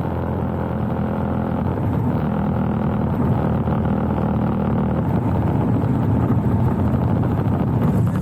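A Lancair 360's engine and airframe noise during the landing. A steady engine drone turns into a louder, rougher rumble at the start and eases off near the end.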